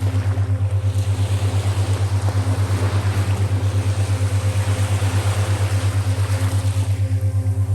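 A boat's engine running with a steady low throb that pulses evenly several times a second. A wave washes in over the middle seconds and fades near the end.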